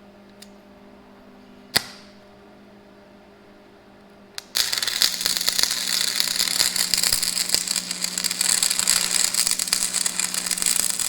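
Electric arc welding a nut onto a broken bolt: a few sharp clicks, then about four and a half seconds in the arc strikes and crackles steadily over a low hum.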